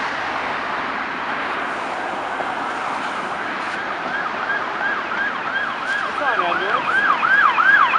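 Electronic siren of an approaching fire-department SUV in fast yelp mode, about three rises and falls a second, growing louder as it nears, over steady city traffic noise. A lower tone sweeps down once about six seconds in.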